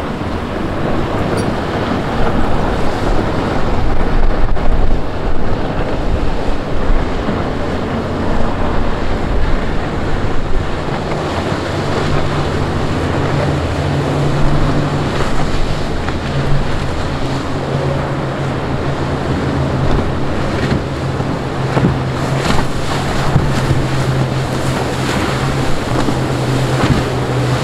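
Outboard-powered center-console boats running fast past the microphone: a steady engine drone comes in about a third of the way through and holds, over the rush of wake and sea and wind on the microphone.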